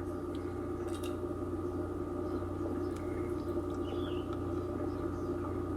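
Steady background hum of several level tones, with a few faint clicks.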